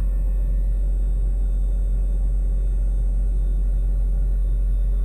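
Steady low rumble of a parked semi truck's diesel engine idling, heard inside the cab.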